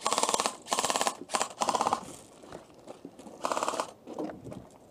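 Airsoft rifle firing on full auto in quick bursts, each a fast rattle of shots: four bursts in the first two seconds, then one more about three and a half seconds in.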